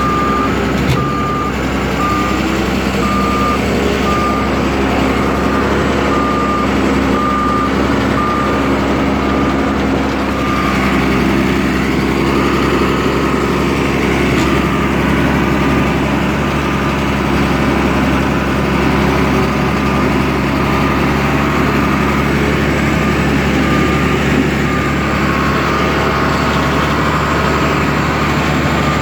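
Bulldozer's diesel engine running steadily while its backup alarm beeps about once a second in stretches, the sign that the machine is reversing.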